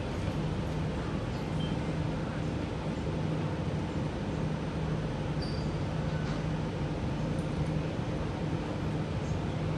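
Alstom Metropolis C830C metro train standing at a platform with its doors open: a steady low hum from the stationary train, with a few faint clicks of station background.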